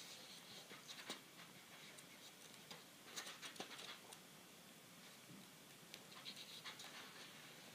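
Faint rustling and flicking of paperback book pages being leafed through by hand, in a few short scratchy bursts.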